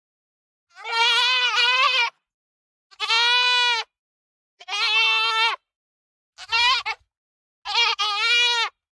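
Goat bleating five times, each call about a second long with a wavering, quavering pitch, separated by short pauses; the fourth call is shorter and broken.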